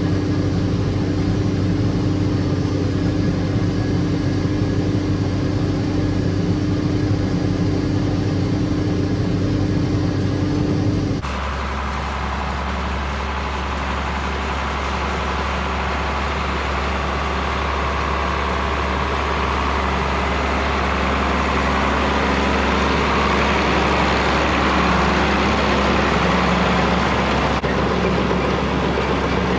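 Farm tractor engine running steadily while working hay. The sound changes abruptly about a third of the way through to a different, lower engine hum.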